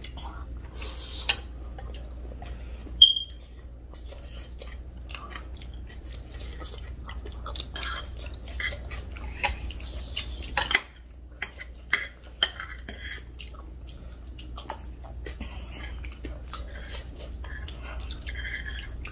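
Eating chatpate: metal spoons clinking and scraping against bowls, with chewing, in scattered small clicks and scrapes. One sharp ringing clink about three seconds in is the loudest sound.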